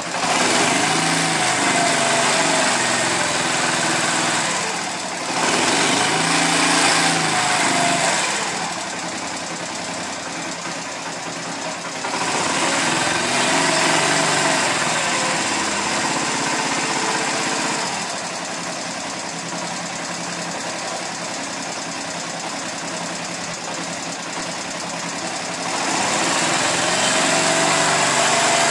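Honda Eco 100 motorcycle's small single-cylinder four-stroke engine running, revved up four times and dropping back to a steady idle between revs.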